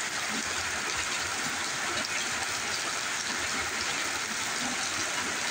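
Steady rain falling, an even hiss of water with no breaks.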